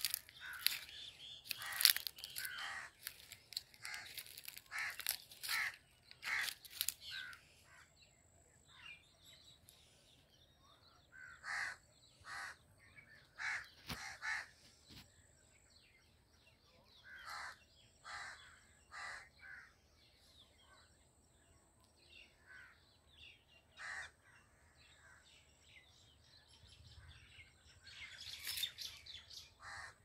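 Crows cawing repeatedly: a dense flurry of short calls at the start and again near the end, with spaced single caws in between.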